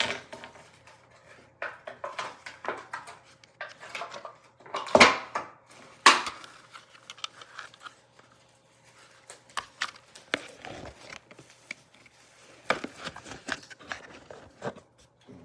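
Handling noise: a string of small clicks, taps and crinkles, with two louder knocks about five and six seconds in.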